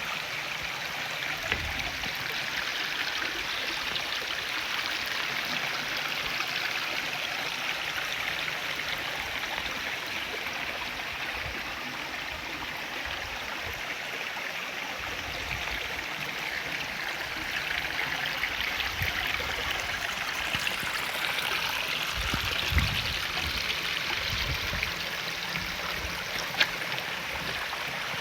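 Mountain stream running over rocks: a steady rushing of clear water, with a few sharp ticks from the water and some low splashes in the second half.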